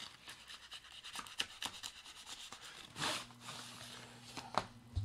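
Packaging being handled: crackling and rubbing as a bubble-wrapped clear plastic box is slid out of slit-open, taped cardboard wrapping, with a louder scrape about three seconds in and another near the end.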